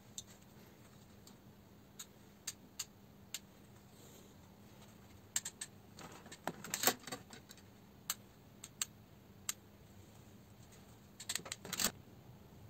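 Sharp clicks and clatter from a hand tool working a copper wire during cutting and crimping. There is a scatter of single clicks, a denser burst about six to seven seconds in, the loudest part, and another short burst near the end, all over a faint steady hum.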